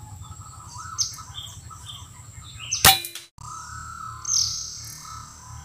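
A single shot from an SE 03 Transformers PCP air rifle: one sharp crack about three seconds in, with faint bird chirps before it. Electronic music starts just after the shot.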